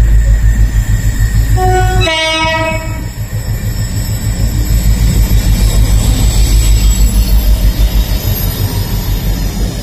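GB Railfreight Class 60 diesel locomotive passing under power, its Mirrlees eight-cylinder diesel engine giving a heavy, pulsing rumble. About two seconds in it sounds its two-tone horn: a short low note, then a longer higher note.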